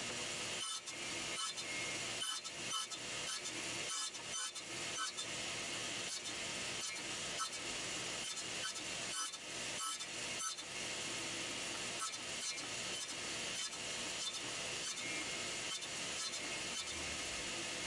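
Table saw cutting wood in repeated passes, nibbling out the waste between dovetail tails in a board fed on end over the blade. The cutting runs steadily, with frequent brief dips.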